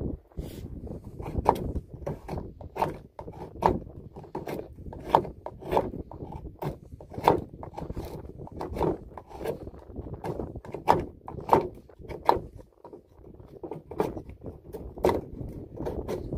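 Knife blade shaving curls off a stick of wood to make a feather stick for tinder, a scraping stroke about once a second, with wind buffeting the microphone.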